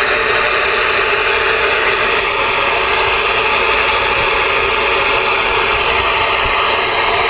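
Steady radio receiver static: a loud, even hiss with a narrow, speaker-like band and no voices in it.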